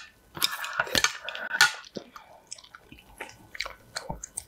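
Close-miked eating sounds: a long wet slurp of spicy noodle broth starting about half a second in, then wet chewing with scattered small clicks of chopsticks on the dishes.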